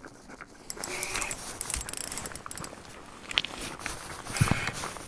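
Fishing reel clicking and ratcheting in irregular runs as a large walleye is played on an ice rod.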